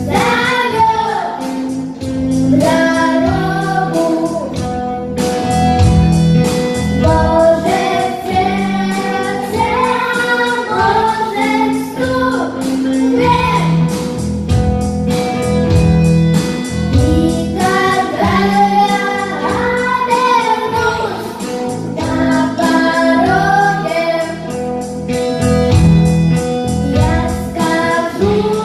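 Song rehearsal: voices singing a melody over a held tone and low accompaniment, with a steady rhythm of sharp knocks beating time.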